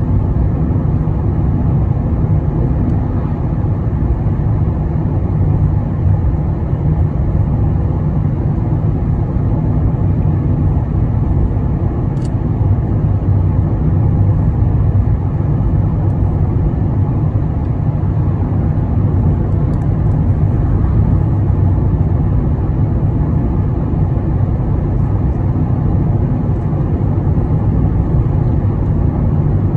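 Steady low rumble of a car driving at highway speed, heard from inside the cabin: tyre and engine noise on the road.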